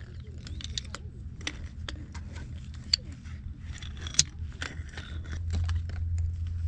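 Metal frame poles of a folding camp chair clicking and rattling as they are unfolded and fitted together: irregular sharp clicks and taps, two of them louder about three and four seconds in, over a low steady rumble that grows louder near the end.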